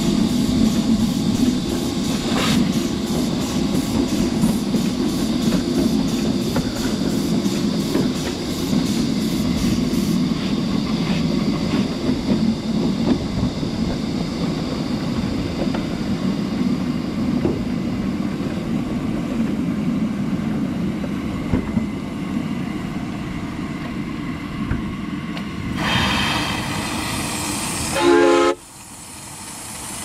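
Miniature live-steam train running along a ridable track: a steady rumble of small wheels on rail with quick regular clicking over the rail joints. Near the end comes a burst of hiss and a short whistle-like tone, then the sound drops sharply.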